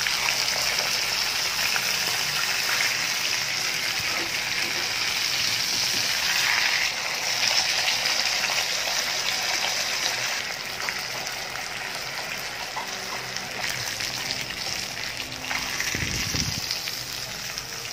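Tanigue (Spanish mackerel) steaks sizzling and crackling in hot oil in a nonstick frying pan over high heat, easing a little past the middle. Near the end there is a brief low bump as tongs lift a steak.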